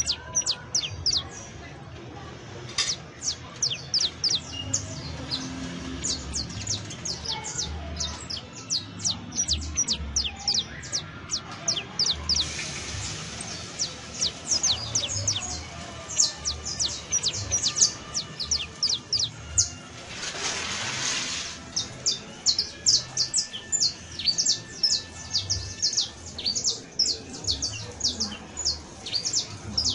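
Saffron finch (Sicalis flaveola), the canario criollo, singing a long run of quick, high chirps, several a second, broken by two short hissy stretches about twelve and twenty seconds in.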